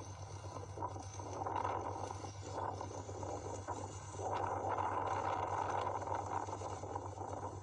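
Steady rushing noise of typhoon wind and heavy rain, swelling louder about four seconds in, over a low steady hum.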